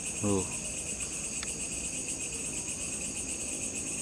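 Steady, high-pitched chirring of crickets and other night insects. A short murmur from a person comes just after the start, and a faint click about a second and a half in.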